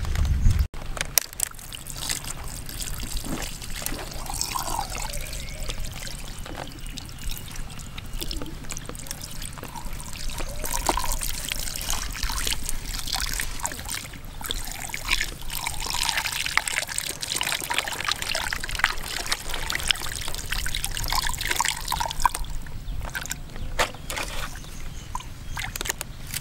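Water trickling and pouring onto a gutted stingray as a hand rubs and washes the wet flesh, with many small wet clicks and splashes.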